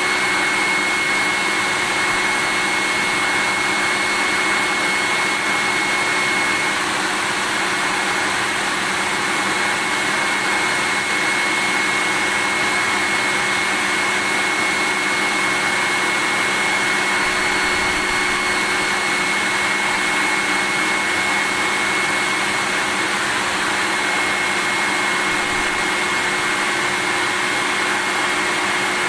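Vacuum cleaner running steadily: an unbroken rushing motor noise with a faint high steady tone in it.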